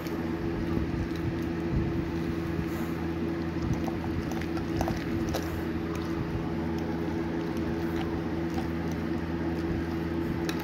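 A utensil stirring a thick cream cheese, spinach and artichoke stuffing in a glass bowl: soft squishing with scattered light scrapes and taps against the glass, over a steady low hum.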